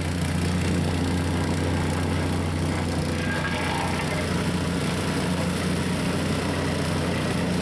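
Small gasoline engine of a vibratory plate compactor running steadily with a low, even hum as the plate tamps down a freshly laid hot-asphalt patch.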